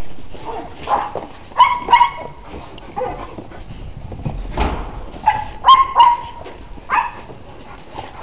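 Dog barking: a string of short, high-pitched barks, several coming in quick pairs.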